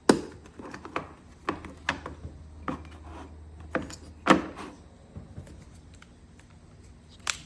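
Irregular clicks and knocks from handling tools and parts, about eight in all, over a low steady hum.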